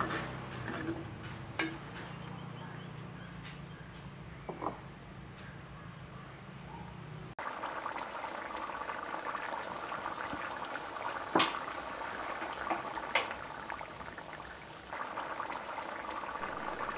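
Rooster curry with coconut milk simmering in a metal pot, bubbling softly, with a few sharp clicks of a metal ladle against the pot. A low hum runs under it and cuts off abruptly a little past the middle.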